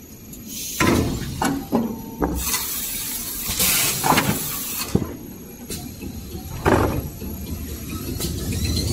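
Glue-laminating toilet paper and kitchen towel machine running with a steady low rumble. Sharp knocks and clicks come at irregular moments over it, and two bursts of hissing fall a few seconds in.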